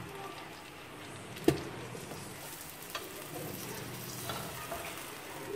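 A wooden utensil scraping and stirring leftover garlic sauce in a still-hot frying pan, with a faint sizzle. A sharp knock about a second and a half in, likely the utensil striking the pan or plate, is followed by a few lighter taps.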